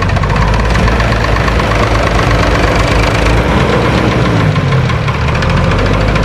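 Diesel engine of heavy earthmoving machinery running steadily with a fast, even clatter.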